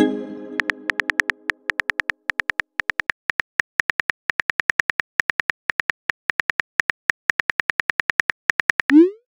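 Chat-app sound effects: a chime as a message bubble pops up, ringing out over about a second and a half, then a run of rapid keyboard typing clicks, several a second, as the next message is typed. Near the end a short rising swoop sounds as the message is sent.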